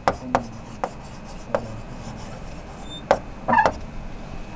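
A pen writing on an interactive whiteboard screen: rubbing strokes broken by about seven irregular sharp taps as the pen meets the surface.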